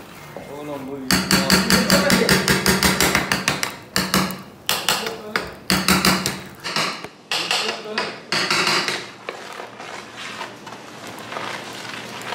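A knife blade striking a clay kebab pot over a flaming tray to crack it open: a fast, even run of taps starting about a second in, then a few slower, separate knocks that fade toward the end.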